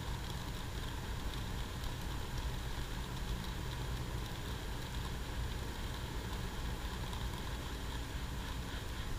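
Box fan running at full speed with a steady whir, blowing across a stream of wheat being poured for winnowing.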